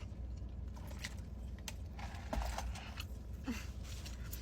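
Quiet eating at close range: scattered small clicks and mouth sounds from chewing chicken wings, over a steady low hum.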